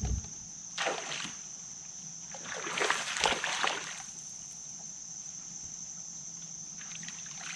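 A hooked bass splashing and thrashing at the water's surface beside the boat: a short splash about a second in, then a longer burst of splashing. A steady high insect drone runs underneath.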